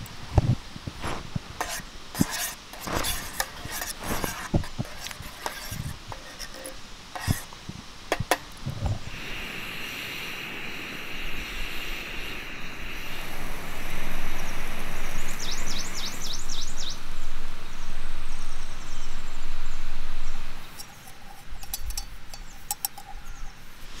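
Small metal clicks and clinks as a folding steel spork and camp cookware are handled. Then a portable butane camping stove burning under an aluminium pot gives a steady rushing hiss that grows louder partway through. A brief run of high chirps comes in the middle, and the clicks of a steel mug's folding handle come near the end.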